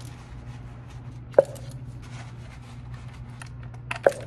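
Sharp clicks and knocks of hand tools and ignition-coil parts being handled in an engine bay, over a steady low hum. The loudest click comes about a second and a half in, and two more follow close together near the end.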